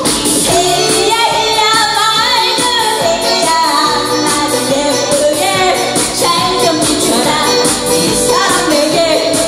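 A woman singing a Korean popular song into a microphone over karaoke backing music, with hand-clapping along to the beat.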